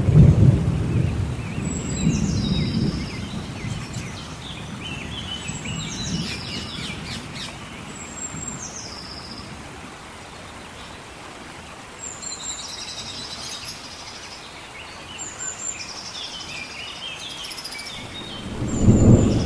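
Rain falling steadily, with thunder rumbling at the start and again near the end. A bird repeats a short, high call that drops in pitch, about every three seconds.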